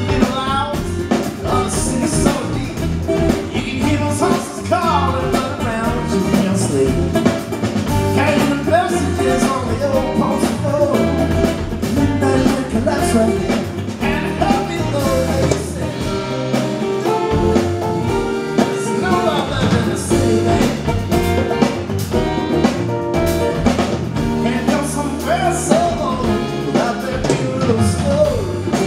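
A live acoustic band playing a song: two strummed acoustic guitars, electric bass guitar and hand percussion, with a male lead voice singing over them.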